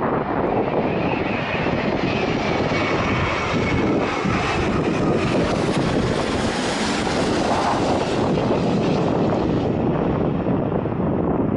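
An airliner on final approach passing low overhead. Its engine noise swells to a peak about six to eight seconds in and then eases off, with a faint high whine in the first few seconds.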